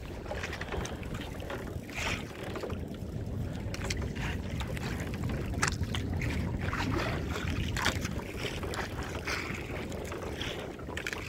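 Steady low rumble of wind and water around a small fishing boat at sea, with wind buffeting the microphone. A few short, sharp clicks and knocks sound now and then.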